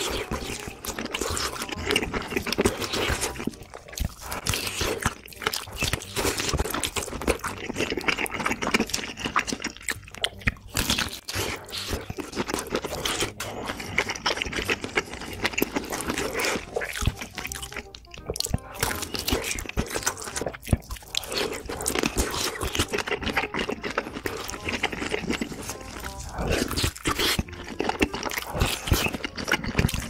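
Close-miked ASMR eating sounds: biting through and chewing large sausages, dense with small wet clicks and smacks.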